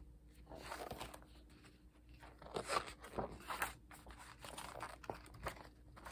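Faint rustling and crinkling of a photobook's heavy paper pages as they are turned and handled, with a few soft knocks, busiest in the middle.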